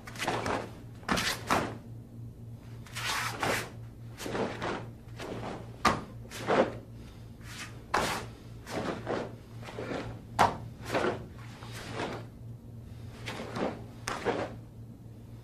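Sharp snaps and thuds of a karate kata: the gi snapping with each strike and block and bare feet landing on the mat. There are about twenty, singly or in quick pairs at uneven spacing, over a steady low hum.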